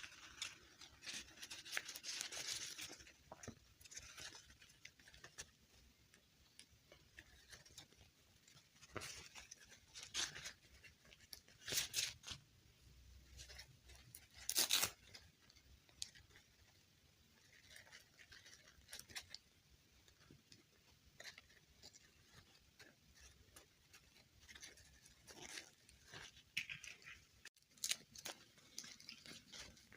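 Faint handling noises of doll packaging and doll parts: scattered rustles, crinkles and small clicks, the loudest sharp clicks about twelve and fifteen seconds in.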